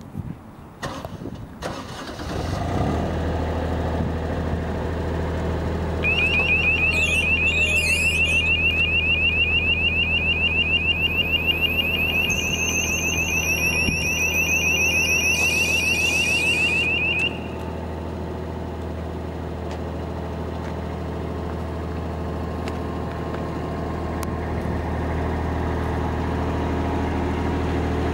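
SMC TL-90 light tower's diesel generator engine cranks and catches about two seconds in, then runs steadily. From about six seconds in, a fast, high electronic beeping warning sounds while the telescopic mast extends, joined by a thin high whine near its end. The beeping stops at about seventeen seconds, leaving the engine running.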